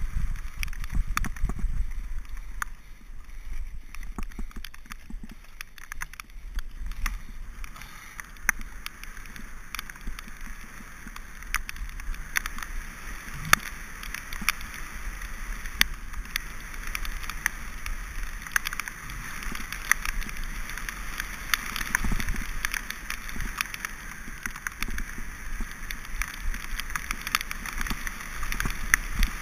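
Mountain bike riding fast down a rough dirt and gravel trail, picked up by a camera riding on the bike or rider: a steady rush of tyre and wind noise with a low rumble, broken by many sharp clicks and knocks as the bike rattles over the ground.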